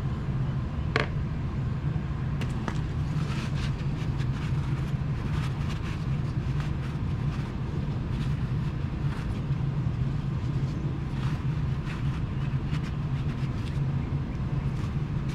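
Steady low machine hum throughout, with faint scattered rustles and small clicks of a paper shop towel wiping spilled oil off a motorcycle's engine case around the oil filter mount.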